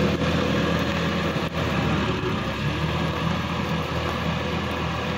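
Sonalika DI-50 RX tractor's diesel engine running steadily under load, pulling a rotary tiller through a flooded paddy, with water and mud churning and splashing.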